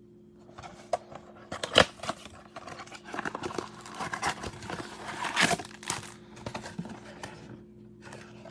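A cardboard 2022 Bowman baseball card box being torn open by hand: a sharp tearing snap about two seconds in, then crinkling and rustling of cardboard and packaging as the contents are pulled out, thinning out near the end.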